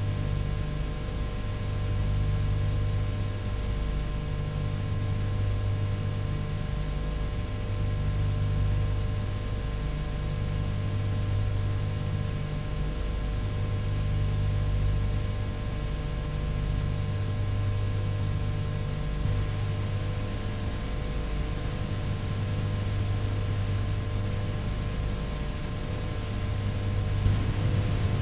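Steady hiss with an electrical hum on a blank stretch of an analog video transfer: no programme sound, only noise. The low hum swells and dips every second or two.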